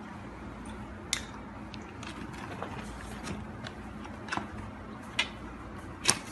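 Hands going through a packed suitcase, rustling cloth and tissue and handling a small box, with a handful of sharp clicks and taps over a steady low hum.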